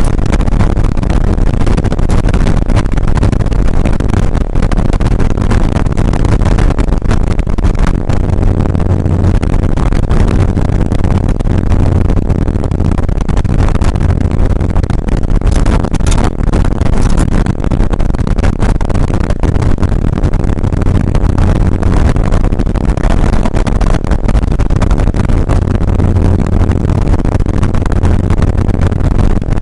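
1981 Porsche 911SC's air-cooled flat-six engine running hard at speed, heard from inside the stripped rally cabin, with road and wind noise. The sound is loud and steady, without sharp knocks.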